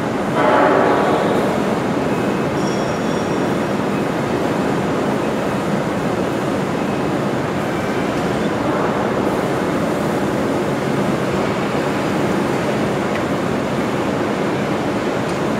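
Steady industrial machinery noise in a factory hall, a dense even rumble and hiss. A louder surge rises about half a second in and fades after about a second.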